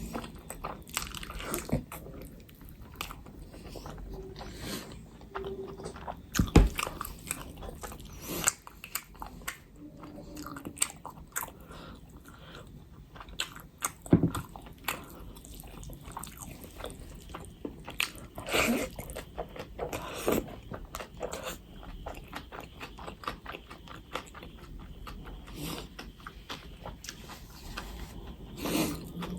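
A person eating Indian curry and rice close to the microphone: irregular chewing and biting with wet mouth clicks and smacks, and a couple of louder sharp knocks.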